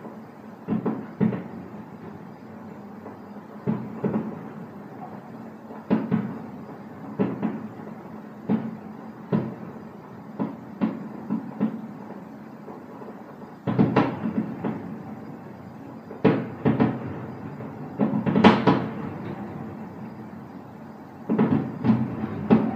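Distant fireworks shells bursting: a string of bangs at uneven intervals, each trailing off, coming thicker in quick clusters in the second half.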